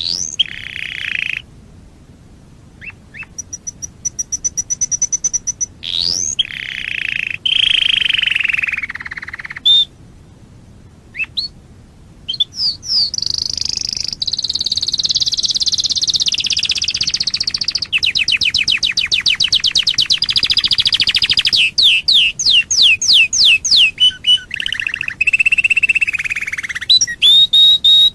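Domestic canary singing: phrases of rapid trills and fast-repeated whistled notes, broken by a few short pauses.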